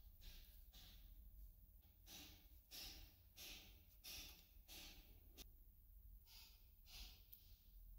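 Faint, short scraping swishes, about one every half second, as the fishing reel handle's plastic knob is turned off its threaded steel shaft.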